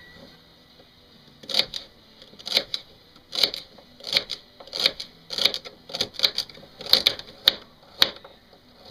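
Kitchen knife chopping celery and then a carrot on a cutting board: a sharp knock of the blade on the board with each cut, starting about a second and a half in and coming about once or twice a second.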